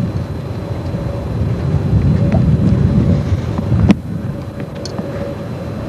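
Wind buffeting the camcorder microphone: an uneven low rumble, with one sharp knock close to four seconds in.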